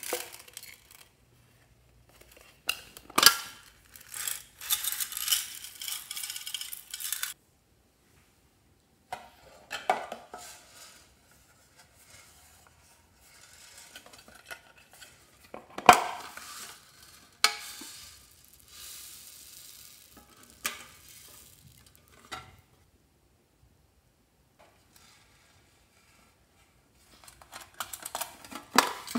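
Small decorated metal tin boxes handled and opened: sharp metallic clicks and clatter of the lids and tins, a handful of them spread through, with spells of rustling as the small beads and sequins inside shift.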